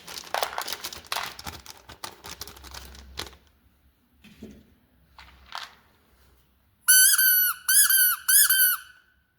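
Dense crisp crackling and clicking for about three seconds, then, after a quieter pause, four loud high-pitched squeaks in quick succession near the end, each holding one steady pitch.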